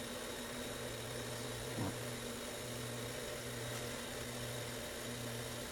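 Steady machine hum in the room, its lowest tone cutting in and out about every second and a half, with one small knock about two seconds in.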